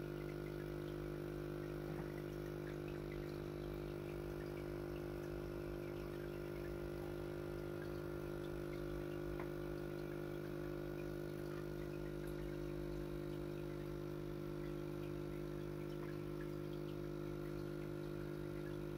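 Aquarium filter pump running with a steady hum of several fixed tones.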